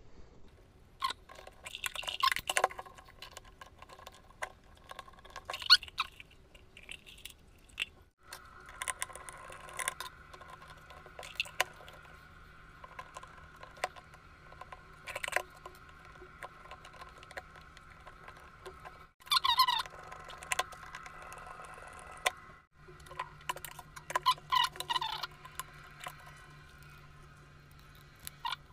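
Plastic parts of an electric kettle being handled during reassembly: scattered clicks, taps and scrapes as the wires are tucked around the base connector and the base cover is fitted back on. A faint steady hum comes in about a third of the way through.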